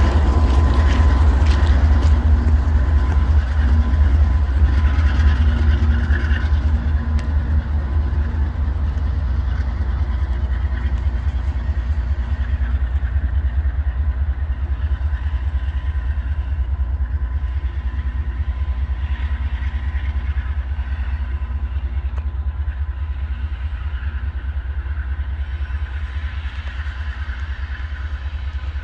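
Diesel freight locomotives giving off a deep, steady engine rumble that slowly fades as the train draws away.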